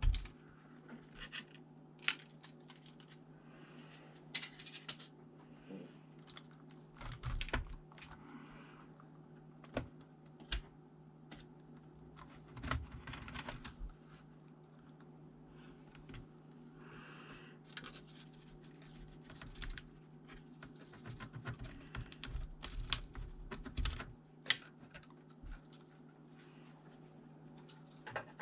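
Irregular clicks, taps and short scrapes from a ThinkPad T400 laptop's plastic case and keyboard being handled and worked on, over a faint steady hum.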